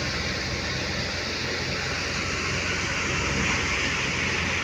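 Wheat thresher running steadily at working speed: a low, even machine drone under a constant rushing hiss.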